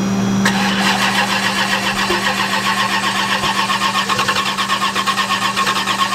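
Starter cranking the frozen twin-turbo Mustang's engine in a steady rhythmic chug, starting about half a second in, without the engine catching. The cold has iced over the turbos and downpipe. A steady low hum runs underneath.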